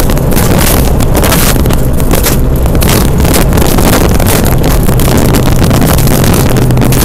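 Rally car engine running hard at a fairly steady pitch, heard from inside the cabin, over loud gravel road noise with many irregular clicks and rattles of stones under the car.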